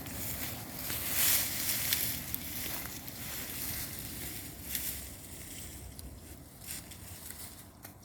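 Irregular rustling and crunching in wood-chip mulch and soil as sweet potatoes are dug up, growing fainter towards the end.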